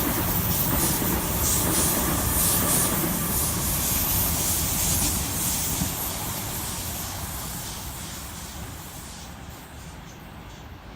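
Sydney Trains Waratah (A-set) electric train passing underneath. Its running noise is loud at first and fades steadily over the second half as it moves away.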